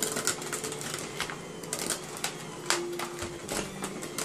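Handheld electric mixer running in a glass bowl, beating cream cheese batter: a motor hum that shifts in pitch as the load changes, with frequent sharp clicks and clatters from the beaters against the bowl.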